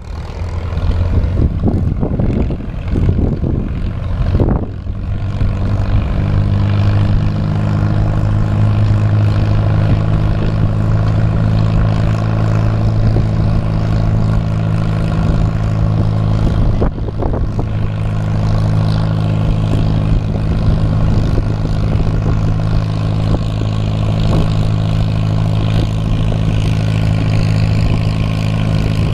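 Farmall Super M tractor's four-cylinder engine running close by. It sounds uneven for the first few seconds, then settles and holds a steady, constant speed.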